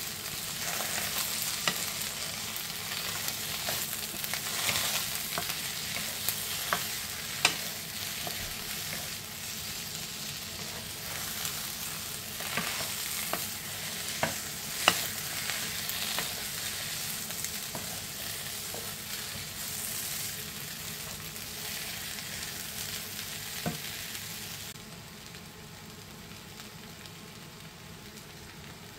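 Potato chunks and onions sizzling in a non-stick frying pan while a wooden spoon stirs them, with occasional sharp knocks of the spoon against the pan. About 25 seconds in the stirring stops and the frying carries on as a quieter, steady sizzle.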